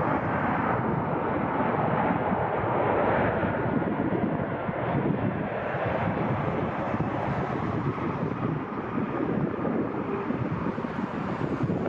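Jet airliner engines running as a steady rush, easing slightly over the last few seconds, with wind buffeting the microphone.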